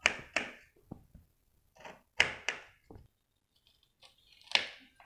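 Kitchen knife chopping peeled peach slices into dice on a plate, the blade striking the plate in short, sharp knocks at irregular spacing, several in quick pairs.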